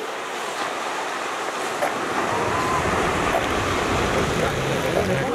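Steady wash of ocean surf with wind noise, and a low rumble building from about two seconds in.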